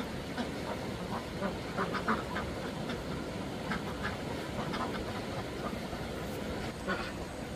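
Ducks quacking in several short runs of calls.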